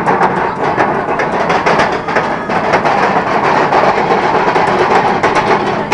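Roller coaster chain lift hauling the Kraken train up the lift hill: a loud, steady, rapid mechanical clatter of chain and clicking anti-rollback dogs.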